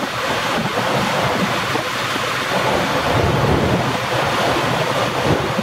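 Steady rushing noise of wind buffeting the microphone and water, with no clear engine tone standing out.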